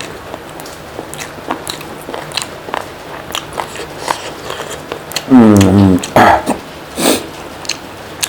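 Close-up mouth sounds of eating: many small wet chewing and biting clicks, then about five seconds in a loud short voiced groan that falls in pitch, followed by two sharp breaths.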